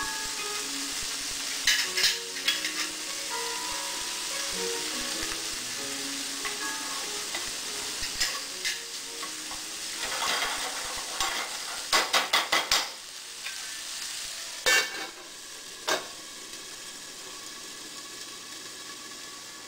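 Chopped vegetables and meat sizzling in a nonstick frying pan as they are stirred, with a steady frying hiss. A quick run of knocks from the utensil against the pan comes about two-thirds of the way through. The sizzle is quieter in the last few seconds, once the pan is covered with its lid.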